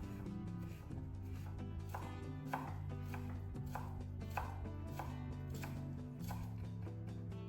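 Knife chopping on a cutting board: a series of separate strokes, about one or two a second, over steady background music.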